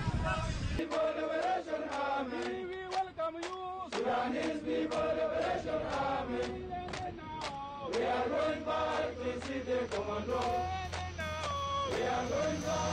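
Men's voices chanting or singing together over a steady percussive beat.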